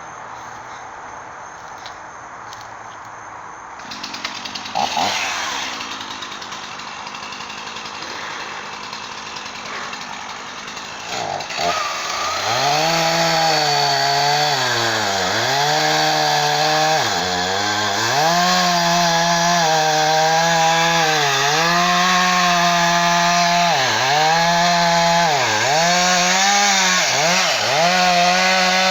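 Two-stroke chainsaw starting about twelve seconds in, after a quieter stretch with a brief noise, then running with its engine speed repeatedly rising and dipping.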